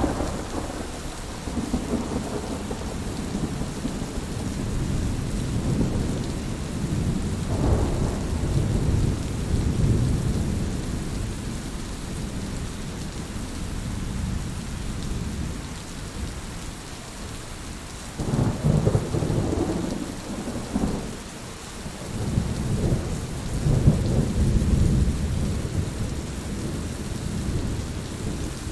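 Steady rain hissing, with deep rumbles of thunder that swell and fade several times, the strongest about two-thirds of the way through.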